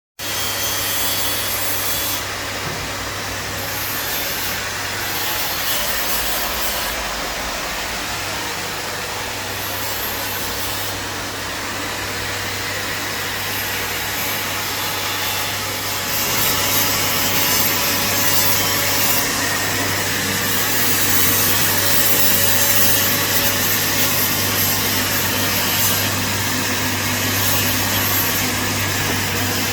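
Electric welding arc running steadily: a continuous hiss with a constant low hum, getting a little louder about halfway through.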